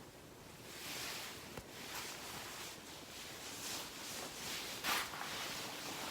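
Soft rustling and handling noises coming and going, with a brief click about one and a half seconds in and a louder swish just before the end.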